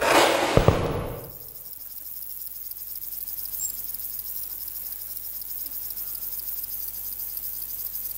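A loud rushing burst with a sharp knock in the first second, then insects chirring steadily in a high, continuous chorus.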